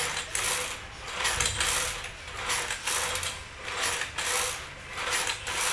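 Kneeling ab-trainer machine in use: its knee carriage rattles and clicks along the frame with each repetition, in regular swells about once a second.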